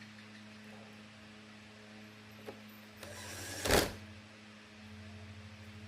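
Steady low electrical hum, with one brief loud rushing burst about three and a half seconds in.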